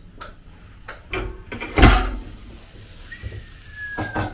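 Kitchen clatter: a few knocks, with one heavy thump about two seconds in and a faint falling tone near the end.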